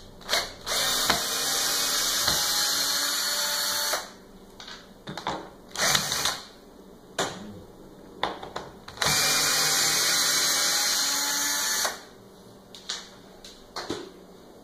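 Power drill running in two steady runs of about three seconds each, with short bursts and knocks between, backing out the screws that held the milled plastic plate down to the CNC router's bed.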